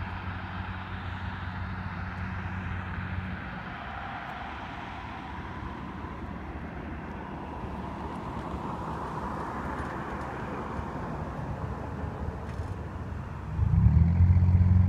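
Road traffic at a highway crossing, with a car driving past and swelling then fading midway. Near the end a much louder, steady low engine-like hum comes in suddenly.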